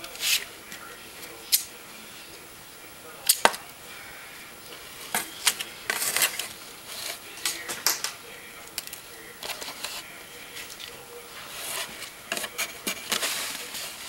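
Unpacking noise: scattered sharp clicks and brief rustles of plastic and cardboard as a new camcorder is handled and its box is rummaged, with the sharpest click a little over three seconds in.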